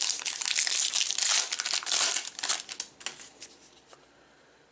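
Plastic wrapper of a trading-card pack crinkling as it is torn open and handled. The crackling is thick at first and dies away about three seconds in.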